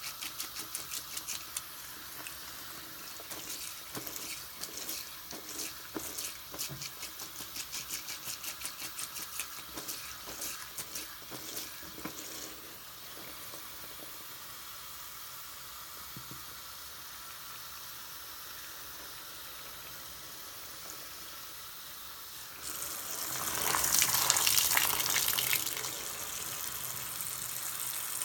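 A soapy sponge squeezed repeatedly by hand under a running bathroom faucet, several wet squelches a second for about the first twelve seconds. About 23 seconds in, the running water grows much louder for a few seconds, then settles to a steady flow.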